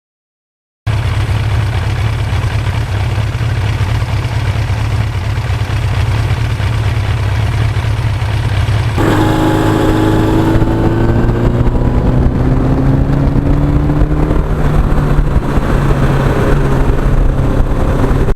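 1982 Suzuki GS1100E's air-cooled inline-four engine running under way, with wind noise, cutting in about a second in. From about halfway the wind hiss drops and the engine note rises gradually as the bike pulls.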